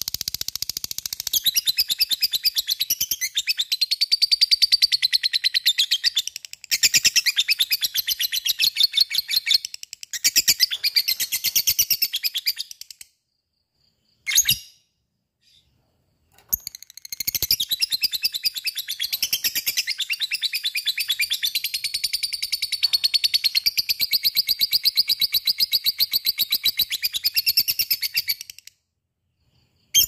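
Lovebird in long 'ngekek' song: shrill, rapid chattering notes, many to the second, in one long unbroken run. The run breaks off about halfway, gives a short burst, then resumes and continues until near the end.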